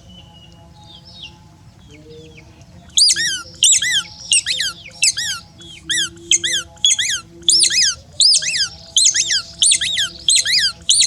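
Pet monkey squealing: a run of short, high-pitched squeaks, about two a second, starting about three seconds in after a quieter stretch.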